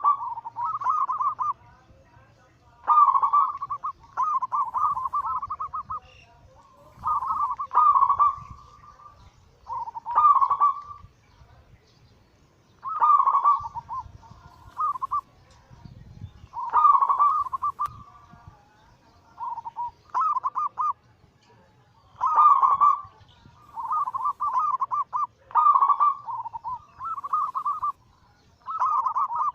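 Zebra dove (perkutut) singing its cooing song: short phrases of quick, stuttering coo notes, repeated every one to three seconds with brief gaps.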